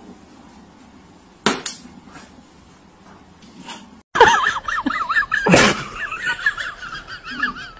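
Two quick sharp clinks, like something hard knocked or breaking, about a second and a half in. After a short break, a loud high warbling sound wavers up and down and carries on, with one sharp clank of a stainless steel pet bowl about halfway through it.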